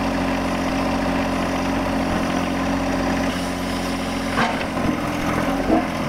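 John Deere 1025R compact tractor's three-cylinder diesel engine running steadily while the backhoe hydraulics push the tractor sideways. The engine tone shifts slightly a little past three seconds, and a single clunk comes about four and a half seconds in.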